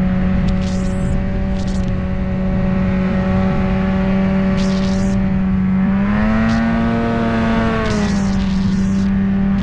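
Snowmobile engine running steadily under way; its pitch rises for a couple of seconds about six seconds in, then settles back. Short hissing bursts come and go over it.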